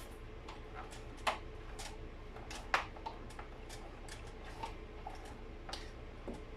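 Scattered light clicks and knocks of vacuum cleaner housing parts being handled during disassembly, with two sharper knocks, about a second in and nearly three seconds in.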